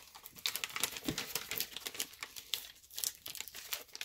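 Clear plastic storage bag crinkling in the hands as a sheet of photo-stencil film is slid back into it, a run of quick, irregular crackles.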